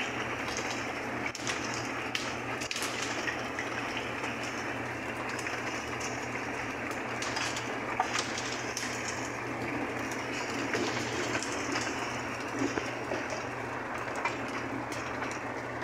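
Hail and rain falling on wet paving stones: a steady hiss of rain with many small, sharp ticks of hailstones striking.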